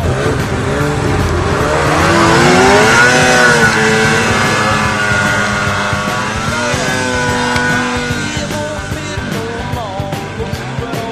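Snowmobile engine revving up and down as the sled ploughs through deep powder, loudest about three seconds in, with background music underneath.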